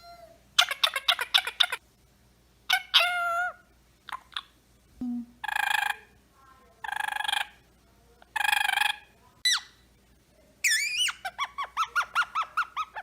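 Parrot calling in a series of separate bursts: a quick run of chattering notes, three harsh squawks about a second and a half apart, then a fast string of chirps near the end.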